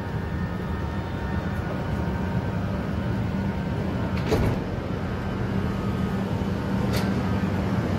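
Steady hum of an electric passenger train standing at the platform, with two short clicks about four and seven seconds in.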